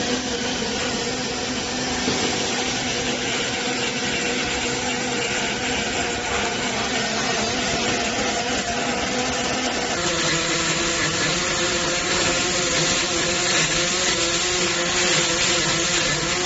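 Single-shaft welding positioner's electric drive motor and gearbox running steadily, with a steady hum over a noisy whir; the hum shifts to a higher pitch about ten seconds in.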